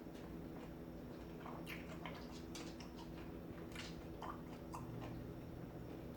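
Faint, wet clicking mouth sounds of a person chewing lemon, coming at irregular moments over a steady low hum.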